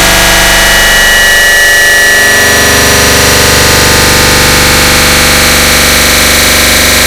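A click sound stacked and repeated so many times that it blurs into one continuous, distorted, loud noise with a faint buzzing drone. About two and a half seconds in, the low end grows heavier.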